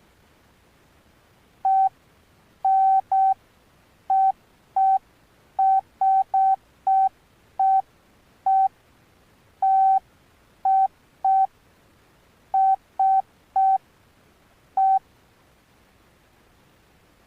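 Key beeps from an Alcatel OneTouch Retro flip phone's keypad: about eighteen short beeps, all at the same pitch, at uneven intervals as buttons are pressed one after another.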